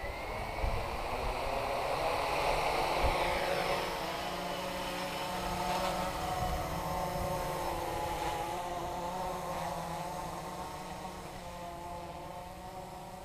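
Blade 350 QX quadcopter's brushless motors and propellers spinning up for takeoff: a rising buzz over the first few seconds, then a steady whine whose pitch shifts as it flies. The sound grows fainter in the second half as the drone climbs away.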